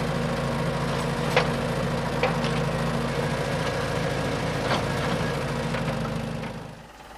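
A small motor running at a steady speed, with a few sharp clicks over it; it winds down and stops near the end.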